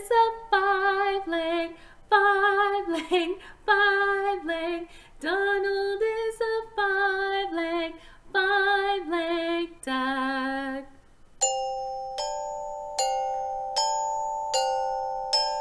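A woman sings a children's action song in short phrases without accompaniment. About eleven seconds in, the singing stops and a mallet instrument takes over, striking two notes together about every three-quarters of a second, each note ringing on.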